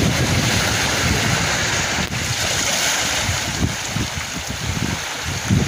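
Sea waves washing and splashing over shoreline rocks, with wind gusting on the microphone in uneven low rumbles.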